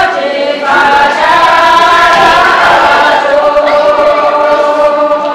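A group of voices singing together in long, held notes, a Tibetan folk song sung for a dance, with a brief break about half a second in.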